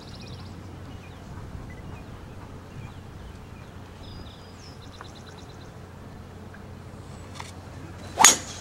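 Low, steady murmur of a hushed golf gallery, then near the end one sharp, loud crack of a golf club striking the ball off the tee on a full swing.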